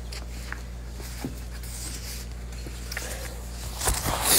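Handling noise: a low steady hum with a couple of faint taps, then a brief rustle near the end as the paperback and the phone are moved.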